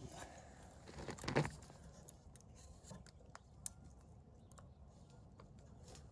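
Faint clicks and rustling from fingers handling the red crimp spade connectors and wire of an RV water heater's thermal cutoff, with a brief louder rustle about a second in.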